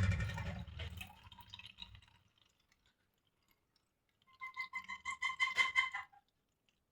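Chaika-2 washing machine's motor switched off at the end of the wash, its hum fading away over about two seconds. After a pause, a quick run of pitched water drips for under two seconds.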